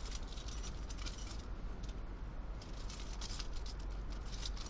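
Light jingling in short scattered clusters of high clinks, over a steady low rumble.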